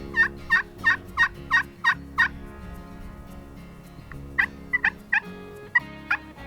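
Wild turkey tom gobbling twice: a fast rattling run of about eight notes at the start, then a shorter, broken run about four seconds in. The gobble gives away a tom's location to the hunter.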